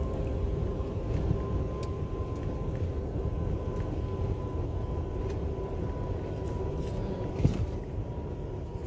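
Steady low rumble of an 18-wheeler diesel truck heard from inside the cab, with a faint steady whine, and a single knock near the end.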